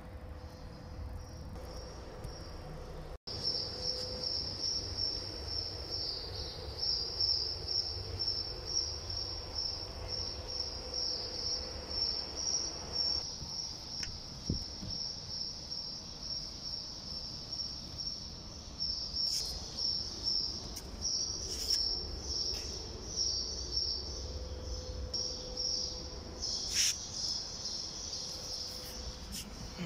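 Crickets chirping in a steady high trill that swells and fades in uneven pulses, with a few sharp clicks in the second half.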